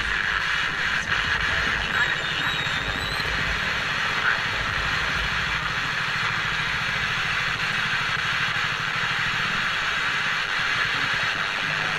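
FM hiss and static from the small speaker of an old Sony ICF-C218 clock radio being tuned between stations, with a low steady hum underneath that fades out near the end.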